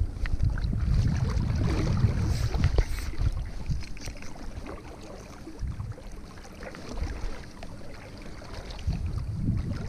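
Wind buffeting the camera microphone as an uneven low rumble, loudest in the first few seconds. Scattered small knocks and rustles come from gloved hands handling fly line and reel.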